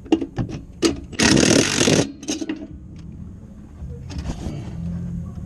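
Metal tools clicking and clinking on the 6.0 Powerstroke's exhaust up-pipe clamp as it is worked into place, with a loud rushing burst of just under a second about a second in. A steady low hum runs underneath.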